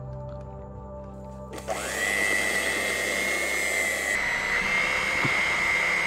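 Electric hand mixer switching on about a second and a half in, its whine rising briefly as it spins up, then running steadily with a high motor whine as its beaters whip cake batter in a glass bowl.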